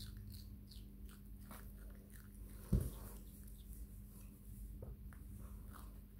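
Baby macaque chewing, with a scatter of small mouth clicks. A single dull thump comes a little under three seconds in.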